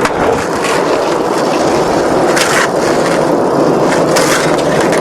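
Skateboard wheels rolling over pavement: a steady rumble, briefly harsher twice.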